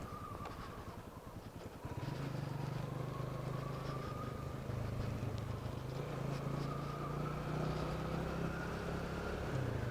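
Motorcycle engine running as the bike is ridden, just restarted after coasting downhill with the engine off. It is lower for the first couple of seconds, then picks up and holds a steady drone.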